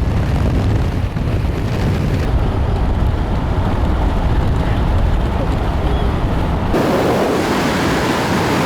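A car driving at speed: steady road rumble and wind noise, changing abruptly near the end to a brighter rush of wind with less rumble.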